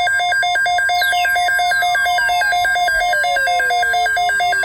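Electronic emergency alert tone: a rapid pulsing beep, about ten pulses a second, with a falling tone that glides down over several seconds, marking the start of a tornado watch alert.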